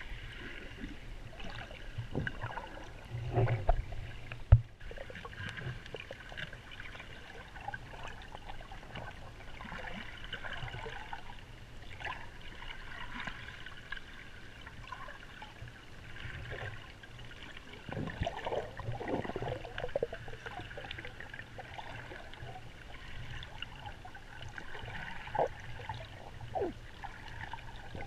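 Underwater sound heard through an action camera's waterproof housing: a steady muffled rush of moving water with scattered crackles and bubbling. A sharp knock stands out about four and a half seconds in.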